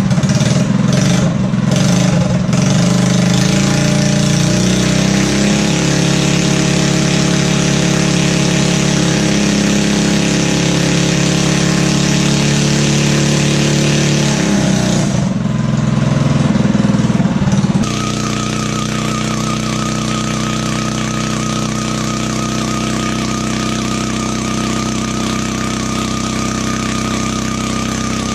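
Tillotson 212 single-cylinder engine on a three-wheeled trike running hard while the trike is held back by a chain. Its pitch steps up and down in the first few seconds and rises briefly about fifteen seconds in. Around eighteen seconds in it drops a little and settles into steady running, with a thin, wavering high whine alongside.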